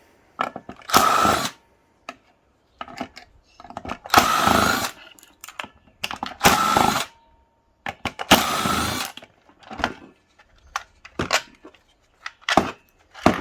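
Cordless drill-driver backing out screws in four short bursts of spinning, about two seconds apart, with small clicks and knocks of handling between them.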